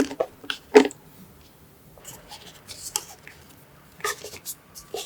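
Irregular handling sounds: short clicks, taps and scraping of small objects being moved by hand, with a sharper knock just under a second in.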